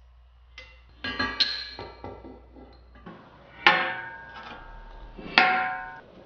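Steel parts and magnetic welding squares clanking down onto a steel welding table, with a few light clinks and then two sharp strikes that ring out.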